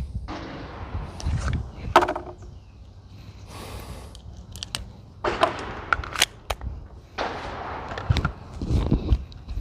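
Sporadic gunshots at a shooting range: a handful of sharp cracks at irregular spacing, with low rumbling handling noise between them.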